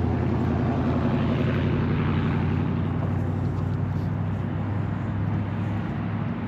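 An engine running with a steady low drone and a rush of noise that swells about two seconds in, then slowly eases off.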